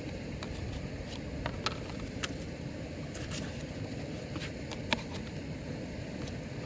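Scattered light clicks and taps of a plastic margarine tub and its lid being handled over a hard plastic cooler lid, the sharpest click about five seconds in, over a steady low outdoor rumble.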